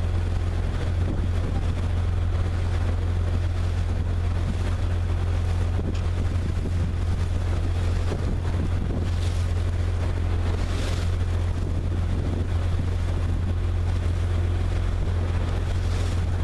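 Motorboat engine running steadily as a low, unchanging drone, with wind on the microphone.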